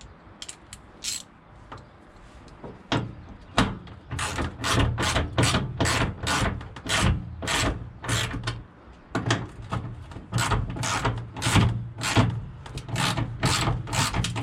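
Ratchet wrench clicking in short back-and-forth strokes as bolts are run into slightly rusty, stiff threads. A few clicks come first, then about two and a half strokes a second from about three seconds in.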